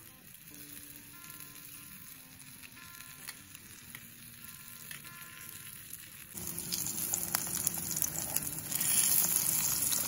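Slices of sausage sizzling in a small camping frying pan over a gas camping stove. The sizzling starts suddenly about six seconds in, grows louder near the end, and crackles throughout. Faint background music plays before it.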